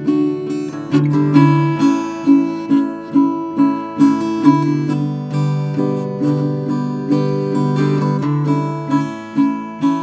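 Acoustic guitar strummed in a steady rhythm of chords, about two strokes a second, with no voice over it.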